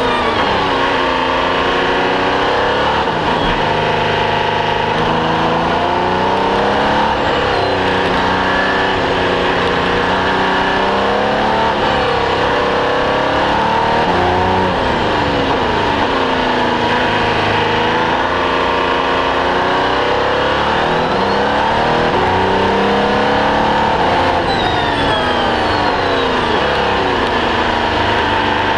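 Audi R18 LMP1 hybrid race car's V6 turbodiesel engine heard from inside the cockpit. The revs climb and fall again and again as the car accelerates out of corners and slows into them on a tight track.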